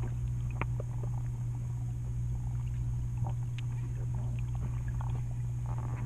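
Underwater sound from a submerged action camera: a steady low hum with scattered small clicks and pops.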